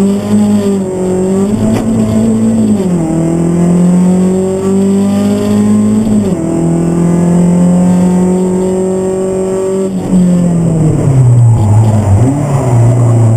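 Hyundai Accent GT rally car's engine heard from inside the cabin, pulling at high revs with its pitch stepping down at gear changes about three and six seconds in, then falling to a lower note near the end as the car slows.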